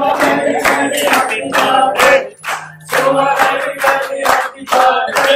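A group of restaurant waiters singing a birthday song together in chorus while clapping in a steady rhythm.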